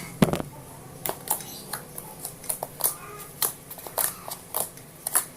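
Water slime being handled and squished by hand, giving irregular sticky clicks and pops, the loudest about a quarter second in.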